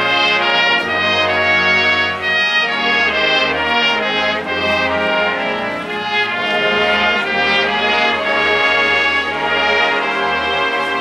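Combined junior high school symphony orchestra playing a loud passage of a Disney film-music medley, with the brass section leading over the full ensemble.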